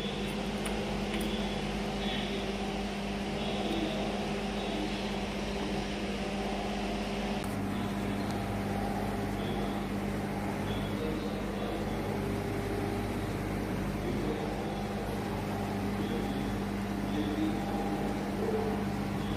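Car interior noise while driving: a steady engine hum with road noise.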